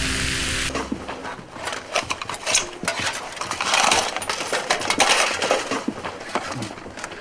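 Music cuts off about a second in, followed by a dense, irregular clatter of sharp clicks and knocks from hard objects.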